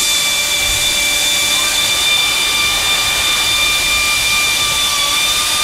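Pneumatic wrench running freely at a steady speed, a loud air hiss with a steady whine and no hammering, then winding down and stopping near the end.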